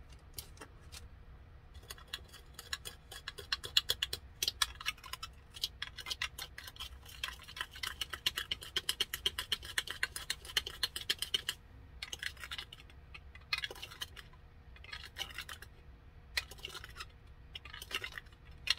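Fine loose glitter being mixed in a container, a rapid dry rattle of many small ticks. It runs continuously for several seconds, then comes in short spells.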